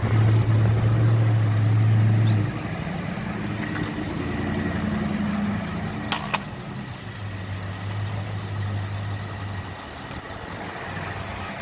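A motor vehicle engine running with a steady low hum, loudest for the first two and a half seconds and again a little past the middle, with one sharp click about six seconds in.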